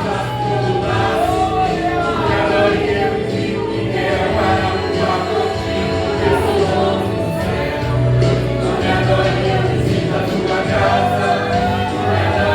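Gospel song: voices singing a melody over instrumental accompaniment with sustained bass notes, at a steady level.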